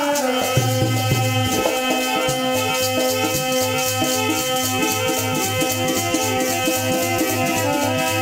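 Instrumental music: sustained chords with changing notes over a steady drum beat, with a jingling rattle marking the beat.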